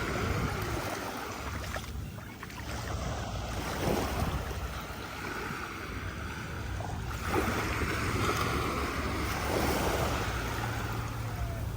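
Sea waves washing onto a beach, the rush swelling and easing every few seconds, with wind rumbling on the microphone.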